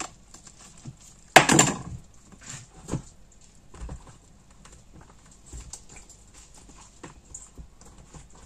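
Kitchen handling noises: a loud clatter about a second and a half in, then light knocks and rustles as pieces of brynza cheese are pressed into a plastic bucket.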